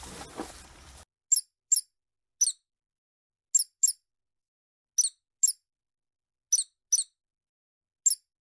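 Small rodents squeaking: about ten short, very high-pitched squeaks, mostly in quick pairs, with silence between. For the first second before them, a faint rustle of a white rhinoceros grazing.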